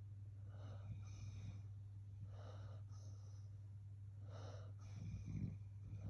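A sleeping basset hound snoring softly, wheezy breaths coming about every two seconds, with a deeper, louder snore about five seconds in. A steady low hum runs underneath.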